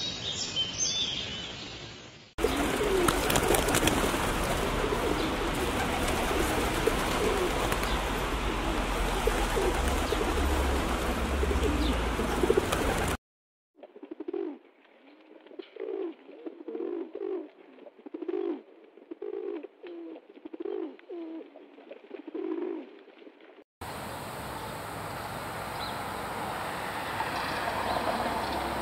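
Rock pigeons cooing: a run of low, repeated coos, first under a loud steady noise, then clean, with about a dozen coos over ten seconds. A steady noisy background takes over near the end.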